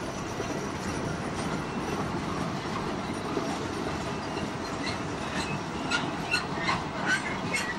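Loaded MGR coal hopper wagons rolling past with a steady rumble of wheels on rail. From about five seconds in, short wheel squeals and clicks come in over the rumble.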